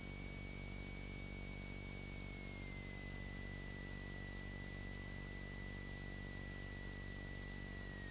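Steady engine and cabin noise of a Beechcraft Sundowner heard through the headset intercom, with a thin high whine that steps down slightly in pitch about two and a half seconds in.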